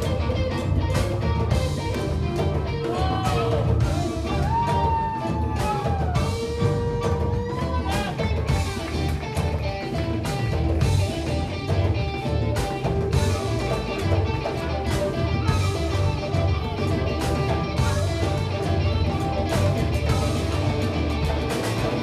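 Live blues band playing a song: guitar over bass and drum kit with a steady beat, with bent, sliding lead notes for a few seconds in the first half.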